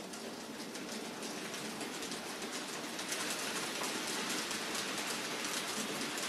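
An N-scale model freight train of tank wagons running along the layout's track: a dense, fast clicking rattle of small wheels on the rails that grows louder over the first few seconds as the train comes close.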